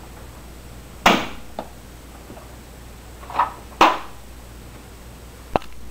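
Two sharp bangs from a toy shotgun going off, about a second in and nearly four seconds in, each dying away quickly in the room, with lighter clicks between them and one more near the end.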